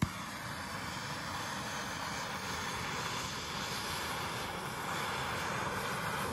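Handheld gas torch on a yellow fuel cylinder lighting with a sharp pop, then burning with a steady loud hiss as its flame is held on a rubber trailing arm bushing to set it alight.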